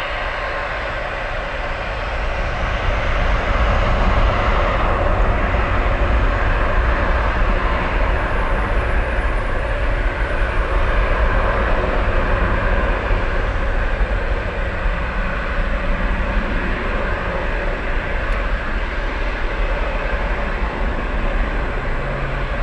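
Airbus A320 airliner's jet engines spooling up to takeoff thrust about two to four seconds in, then running loud and steady as the aircraft begins its takeoff roll.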